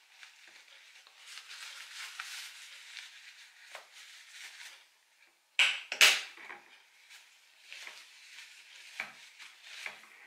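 Paper tissue rustling and rubbing against a plastic shower gel bottle as leaked gel is wiped off the cap. About six seconds in come two loud, sharp crackles, followed by a few small clicks.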